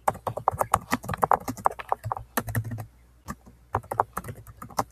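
Typing on a Chromebook keyboard: a quick run of key clicks, with a short pause about three seconds in.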